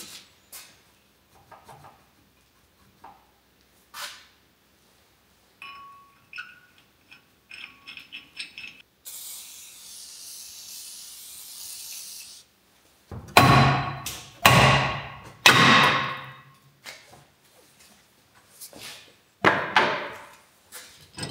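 Light clicks and rattles of hand tools, then an aerosol can spraying steadily at the brake hub for about three seconds. After the spray comes a run of loud metal knocks and clanks as a stubborn brake bolt is forced loose.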